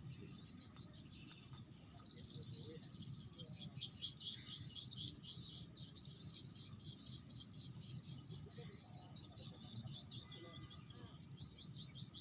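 Insects chirping in a fast, pulsing high-pitched trill, about four to five pulses a second, going on steadily.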